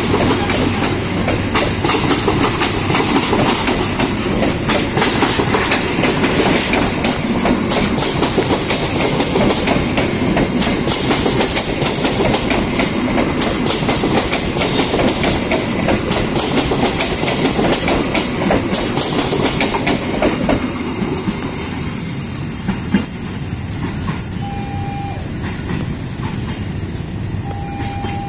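Passenger coaches of a train rolling past close by, wheels clattering over rail joints with some squeal. About two-thirds of the way in the rolling noise drops away, and near the end a few short steady tones sound.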